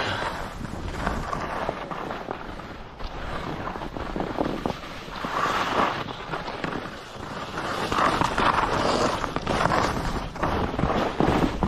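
Skis scraping and hissing over packed snow on a downhill run, swelling louder with the turns, with wind buffeting the microphone.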